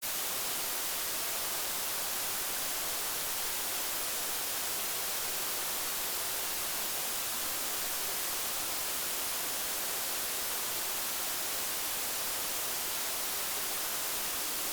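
Steady, even hiss of static with no other sound in it.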